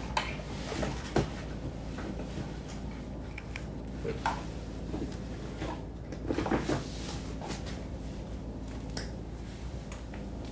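Handling sounds as a latex rubber dam is pressed down around a typodont molar: a few short soft knocks and rubs, with a cluster about six and a half seconds in, over a low steady hum.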